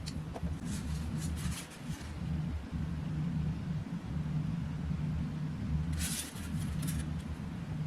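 Graphics card packaging being handled during an unboxing: short rustles and scrapes about a second in and again near the end, over a steady low rumble.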